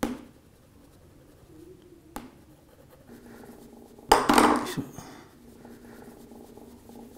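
Two sharp clicks, then a screwdriver clattering down onto the table about four seconds in, followed by a cloth rubbing faintly over a phone's glass back.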